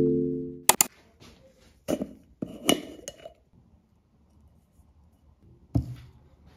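The last of a marimba tone fades out, then glassware and dishes are handled in short clinks and knocks, with a brief ringing clink about three seconds in and a soft thump near the end.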